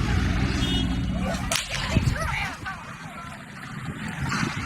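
An engine running steadily, then a sharp crack about a second and a half in, after which the engine sound drops away. A second, fainter crack comes near the end.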